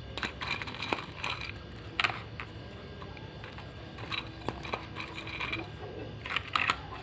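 Irregular light clicks, taps and brief scraping rustles of food being arranged by hand in a lunchbox.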